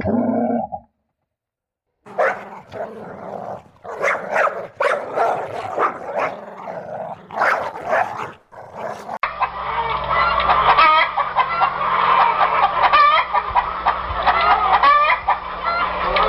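Chickens clucking in separate calls. About nine seconds in it cuts abruptly to a denser flock of poultry calling continuously over a steady low hum.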